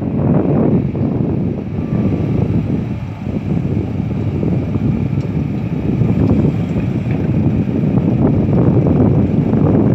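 Wind rumbling on the microphone over the steady running of a Komatsu PC200 hydraulic excavator's diesel engine as the machine works its bucket across the ground.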